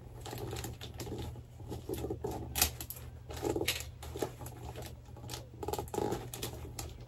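Wrapping paper rustling and crinkling as it is folded around a gift by hand, with scattered small taps and crackles and a sharper one about a third of the way in.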